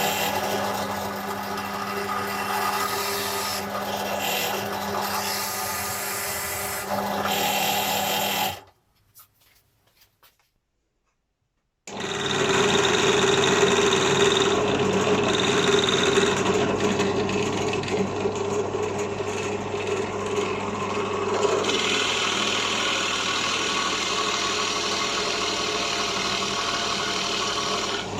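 Energer ENB672DBT 350 W bench drill press running with a steady mechanical hum. It stops after about eight seconds and, after a few seconds of silence, runs again for the rest.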